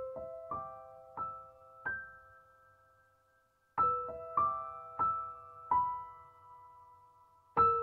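Slow, gentle background piano music: single notes struck about half a second apart, each ringing and fading. A phrase of four notes, a pause, another four-note phrase, and a third phrase starting near the end.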